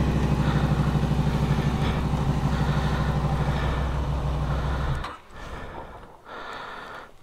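Motorcycle engine idling with a steady, even pulse, then cut off suddenly about five seconds in as the bike is switched off. Faint handling noises follow.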